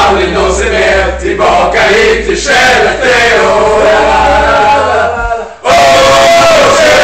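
A group of adults, mostly men, singing a sing-along loudly together in unison, arm in arm. About five and a half seconds in they break off briefly, then come back in at full voice.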